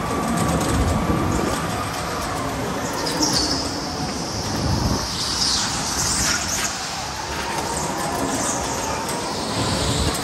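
Electric go-kart at speed: its motor whines, rising and falling with speed, over a steady rumble. The tyres squeal in high screeches through the corners, most around the middle.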